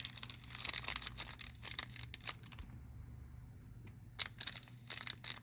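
Crinkling and rustling of a trading-card pack's foil wrapper and cards being handled, in two stretches with a quieter lull of about a second and a half in the middle.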